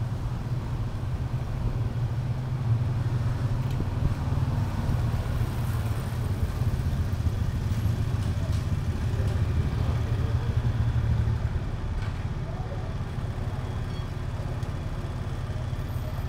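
Steady low engine rumble from a motor vehicle, easing off about eleven seconds in.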